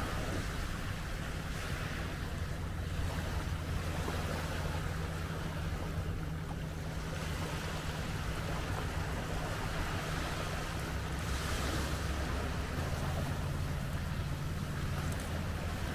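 Small waves breaking and washing up over a pebble beach, one wash swelling louder about eleven seconds in. A steady low hum runs underneath.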